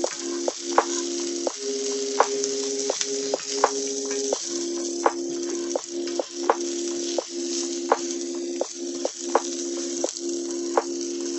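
Stir-fried pasta and spinach sizzling in a hot cast iron skillet as a wooden spatula turns it. The spatula knocks against the pan in sharp clicks roughly every three-quarters of a second, over a steady low hum.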